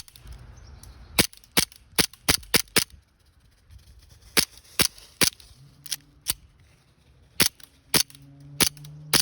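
Shots from an Elite Force 1911 Tac CO2 airsoft pistol: a rapid string of about six sharp pops in a second and a half, then more shots in twos and ones after a short pause, around fifteen in all.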